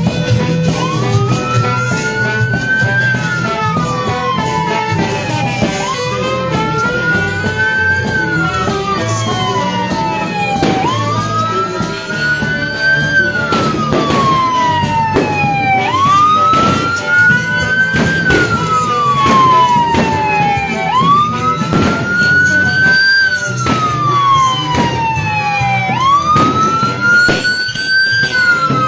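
Emergency-vehicle siren on a slow wail, rising quickly and falling slowly about every five seconds, starting about a second in, over music.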